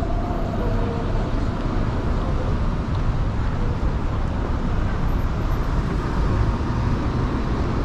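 City street traffic: cars and a bus driving past, a steady low rumble of engines and tyres.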